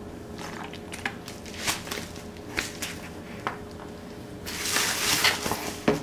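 A Zippo lighter's steel insert and small tools handled and set down on a stone countertop: a string of light metallic clicks and taps. Near the end comes about a second and a half of hiss, closed by one sharp click.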